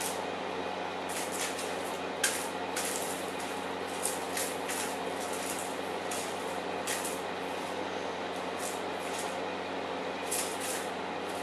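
Persian kitten playing with toys on a wooden floor: irregular short scratchy rustles and taps from paws and toys, the sharpest about two seconds in, over a steady background hiss.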